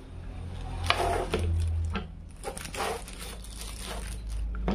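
Handling sounds from a switched-off electric hand planer as it is turned over in the hands and set down on a table: a few short scrapes and rustles, over a steady low hum.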